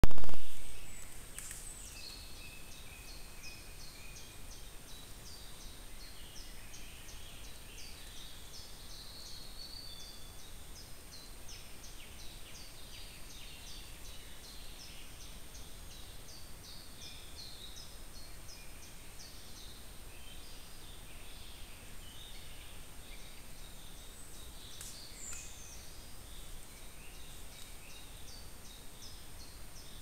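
Dawn chorus of small songbirds, many short high chirps and trills, over a steady hiss and a faint steady high whine from the trail camera's recording. A loud thump at the very start dies away within half a second.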